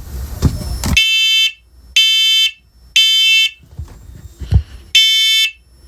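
First Alert smoke and carbon monoxide alarm sounding its test alarm: loud, high-pitched half-second beeps, three in a row about a second apart, a pause, then the next group beginning near the end. This is the temporal-three smoke evacuation pattern. A couple of low knocks from handling the unit come before the first beep and in the pause.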